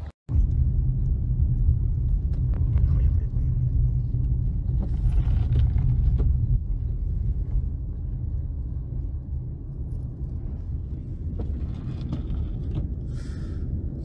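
Low, steady rumble of blizzard wind buffeting the microphone, easing a little past the middle.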